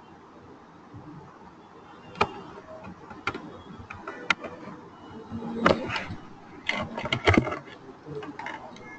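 Irregular sharp clicks and knocks over faint room noise, single ones a few seconds in and denser clusters of louder knocks from about five and a half to seven and a half seconds in.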